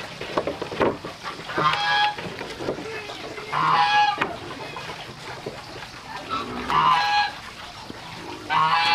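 Domestic fowl calling four times, each call about half a second long and about two and a half seconds apart, with light knocks in between.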